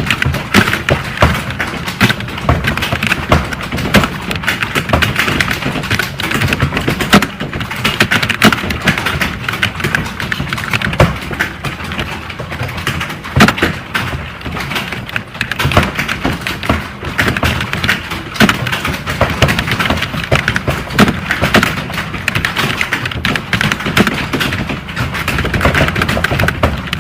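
Fast, continuous typing on a computer keyboard: a dense, uneven stream of key clicks with some heavier strokes standing out.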